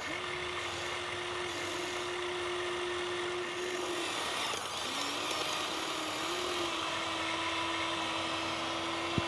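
Small electric motor of a radio-controlled construction model whining at a steady pitch. It steps up in pitch at the start, stops about four seconds in, then starts again lower and steps up once more about six seconds in.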